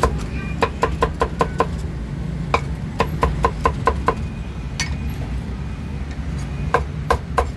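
Meat cleaver chopping pork and cucumber on a thick wooden chopping block: quick runs of sharp knocks, about six a second, in three bursts with short pauses, over a steady low background rumble.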